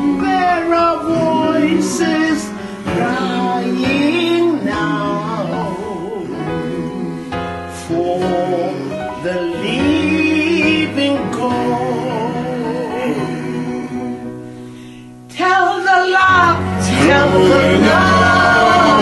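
Gospel song: singing voices over instrumental backing. The music dips in level just before the fifteen-second mark, then comes back suddenly at full level.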